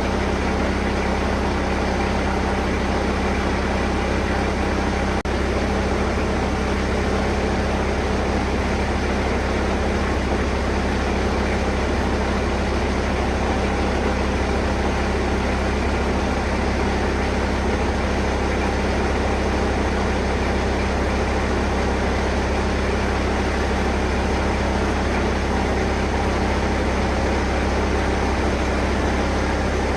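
1999 Bobcat 763 skid-steer's diesel engine idling steadily with its hydraulics and cooling fan running, the machine standing on jack stands. A faint single click about five seconds in.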